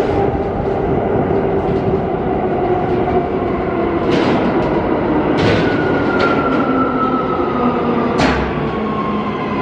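R179 subway train pulling into the station and slowing, its motor whine falling in pitch over the steady rumble of the wheels, with a few sharp clicks from the wheels over the rails.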